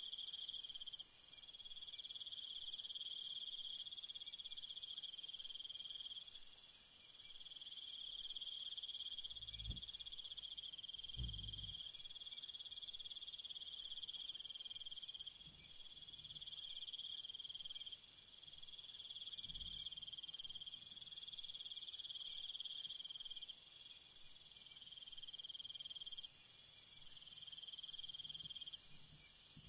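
Night chorus of crickets and other insects trilling steadily in several overlapping pitch layers, the highest and middle layers starting and stopping every few seconds. A few faint low thumps come near the middle.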